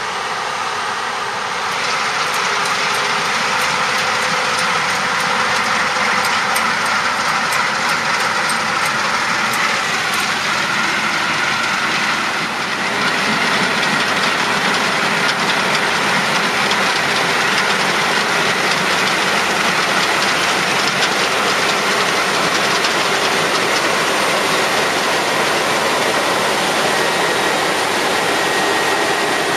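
Claas Lexion 750 combine harvester with its Caterpillar C13 six-cylinder diesel and threshing machinery running steadily, getting a little louder about two seconds in, with some light rattling and clicking.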